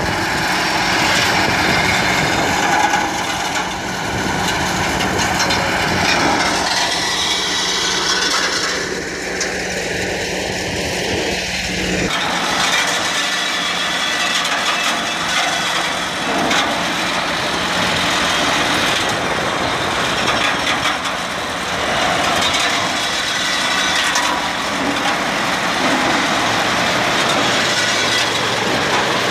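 Tractor engine running while a Tresac SP 07 rosehip harvester clatters steadily, its picking mechanism stripping hips from the bushes. About twelve seconds in the deep engine sound falls away and the rattling machine is heard alone.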